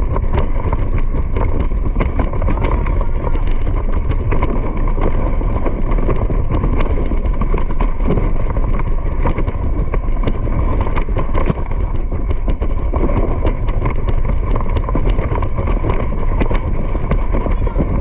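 Wind buffeting a moving microphone in a steady, loud rumble, with many light irregular clicks and taps through it.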